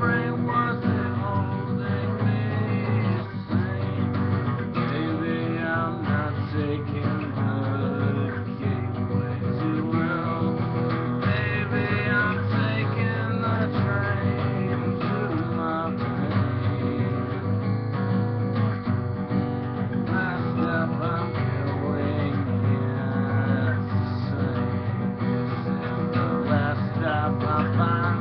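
Acoustic guitar strummed, chords ringing on in a steady, unbroken rhythm.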